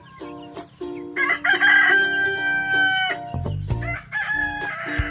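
A rooster crowing: one long, loud crow lasting about two seconds, starting about a second in, then another crow beginning near the end.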